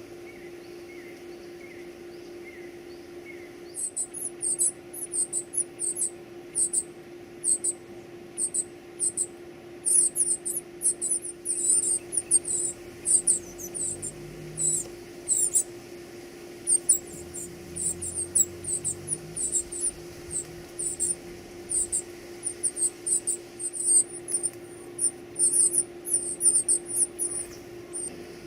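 Baby birds cheeping: rapid runs of very high-pitched, short squeaky chirps starting a few seconds in, the begging calls of nestlings at feeding time. A steady low hum runs underneath.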